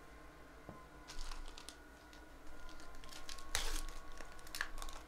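Quick light clicks and crinkling from trading card packs and cards being handled on a table. The sounds come in two spells, a short one about a second in and a longer one from about halfway, with the loudest clicks near the end.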